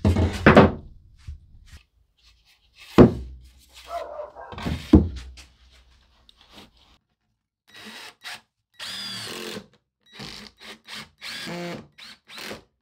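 Wooden knocks as a pine board is set down and shifted on the CNC router's MDF bed, then a Ryobi 18 V cordless drill running in several short bursts, each about a second or less.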